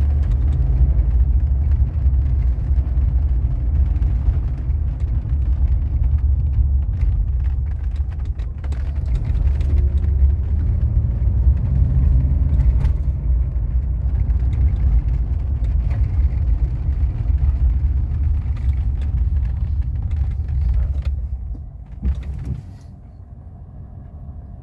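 Mercedes-Benz W126 500 SE's 5.0-litre V8 running on LPG, a steady low rumble, its misfire cured by a richer LPG mixture, as the owner takes it. The sound drops away sharply about 22 seconds in.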